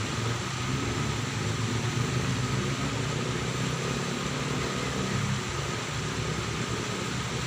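Steady low mechanical hum with a faint high whine and a constant background hiss.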